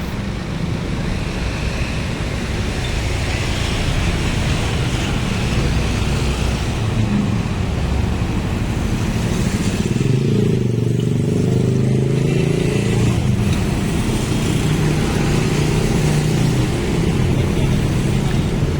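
Road vehicle engine running steadily amid road traffic, with a deeper engine note coming in about ten seconds in and holding.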